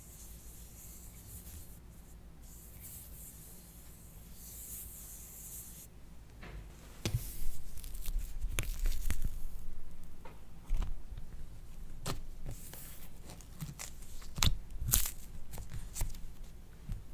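Slime being squished and stretched by hand, with sticky crackles and pops that start about six seconds in after a faint hiss.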